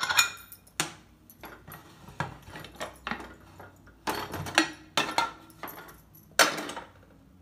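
Aluminium pressure cooker being opened: the whistle weight lifted off the vent and the lid worked free of the pot, a series of short metallic clinks and knocks.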